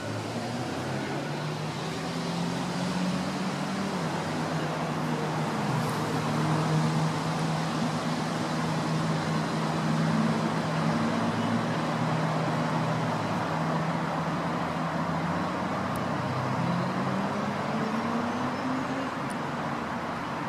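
Road traffic: the steady hum of passing vehicles' tyres and engines, with one engine note rising in pitch near the end.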